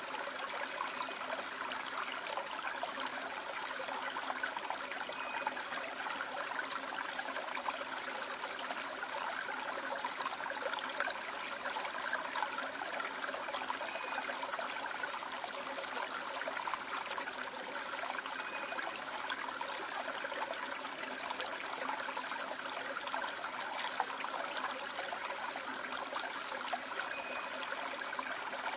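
Stream water running steadily over rocks in a valley, an even rushing babble.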